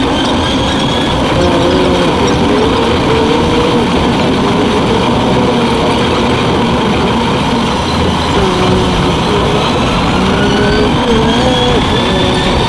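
Running noise of a narrow-gauge Yokkaichi Asunarou Railway train, heard from inside the car and sped up five times, so the rumble and the wheel and motor tones come out high and jittery. Near the end a motor whine rises in pitch.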